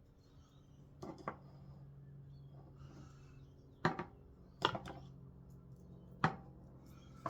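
New dinner plates and bowls being set down and stacked on a hard surface: a series of sharp, separate knocks spaced irregularly, with a faint low hum underneath.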